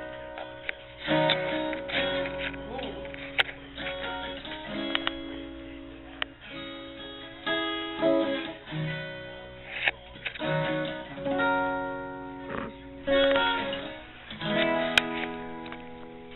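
Acoustic guitar played in slow chords, each chord picked or strummed and left to ring for a second or two.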